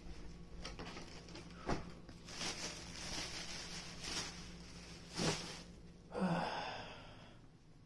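A plastic shopping bag rustles, with a couple of knocks as the bag and a boxed item are set down on a bed. Near the end comes one breathy sigh.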